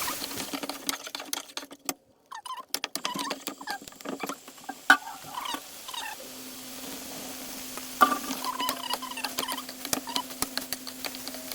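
Cooking utensil stirring and scraping in a pan, with irregular clicks and taps and small squeaks. A steady low hum comes in about six seconds in.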